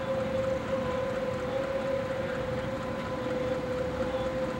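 Outdoor civil-defense warning siren sounding for a tornado warning: one long, steady wail that sags slightly in pitch, over a rumble of background noise.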